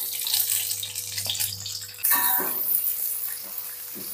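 Sliced carrots and green beans sizzling in hot oil in a wok with frying sausage, garlic and shallots; the sizzle steps up louder about two seconds in.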